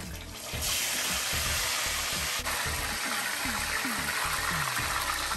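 A whole fish laid into hot oil in a frying pan, sizzling hard. The sizzle starts suddenly about half a second in and then holds steady.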